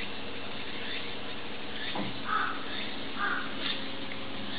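Two short harsh animal calls about a second apart, over faint high squeaks that keep recurring, with a soft knock just before the first call.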